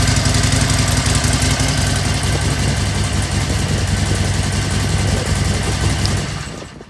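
Harley-Davidson Sportster Seventy-Two's 1200 cc air-cooled V-twin idling steadily, then dying away near the end as it is switched off.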